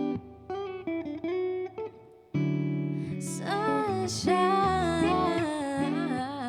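Guitar playing separate plucked chords, joined about halfway through by a sustained, wavering sung vocal line without clear words.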